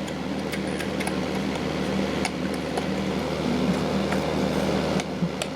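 A steady machine hum, in the manner of a fan or air conditioner, with scattered light clicks and taps.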